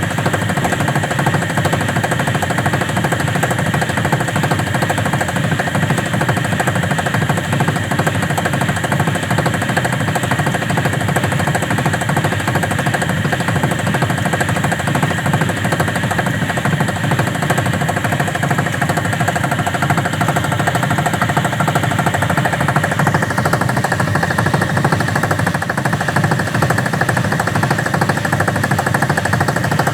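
Washing machine on its spin cycle, the drum spinning with a loud, steady, rapid rattling and knocking: the noise of a faulty machine.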